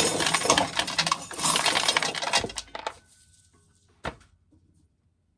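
Dry corn kernels clattering and rattling as an ear of corn is shelled, stopping about two and a half seconds in. A single sharp click follows about four seconds in.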